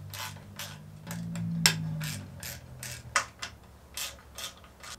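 Hand socket ratchet clicking as it backs out the quarter-inch Allen bolts holding down the intake manifold: a string of separate sharp clicks, about two or three a second.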